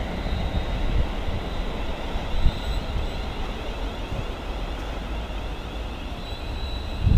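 London Midland Class 350 Desiro electric multiple unit running slowly along the platform: a steady rumble of wheels on rail with thin, high electric whining tones from the train.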